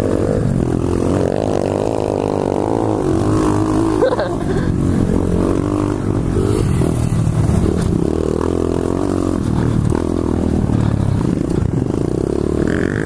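A 125cc pit bike's single-cylinder four-stroke engine running close under the rider, its pitch rising and falling over and over with the throttle while riding.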